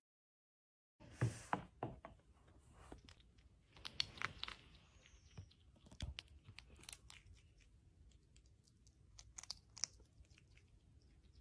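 A bushbaby (galago) eating, with many small crisp clicks and crunches of chewing. A few soft thumps come in, the loudest about a second in.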